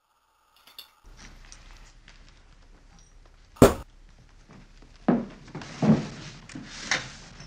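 Ceramic ashtray being set down and handled on a towel-covered table among metal tools: one sharp knock about three and a half seconds in, then three softer thumps.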